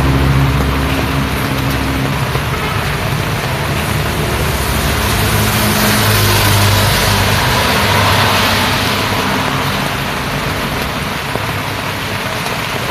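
Road traffic on a wet road in the rain. A passing vehicle's engine fades away over the first couple of seconds, then tyre hiss on the wet surface swells and dies away around the middle, over a steady wash of rain and traffic noise.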